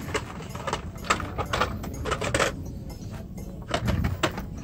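Irregular clicks and rattles of blister-packed Hot Wheels cars being pushed aside and handled on store peg hooks.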